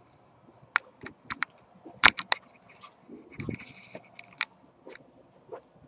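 Handling noise from a handheld camera being moved around: scattered sharp clicks and knocks, the loudest about two seconds in, with a dull thump and rustle a little past the middle.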